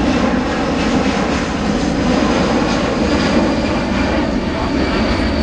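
Boeing C-17 Globemaster III's four Pratt & Whitney F117 turbofan engines running in a steady rush during a low-speed pass with the gear down, with a thin high whine that grows stronger in the second half.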